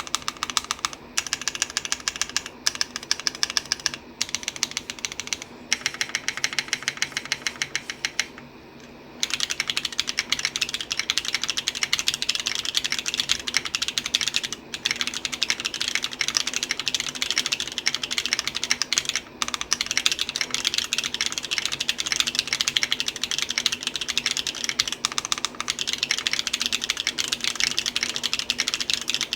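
Mechanical keyboard fitted with thick PBT Crush80 keycaps being typed on: rapid keystroke clacks, in short runs with brief pauses for the first several seconds, then a fast, unbroken stream of typing.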